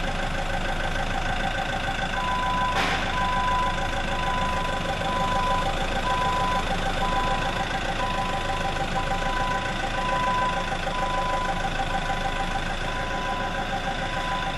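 Forklift engine running steadily while its warning beeper sounds about twice a second, starting about two seconds in. There is one metallic clank about three seconds in as the piston and rod of the dozer's hydraulic tilt cylinder are pulled free of the barrel.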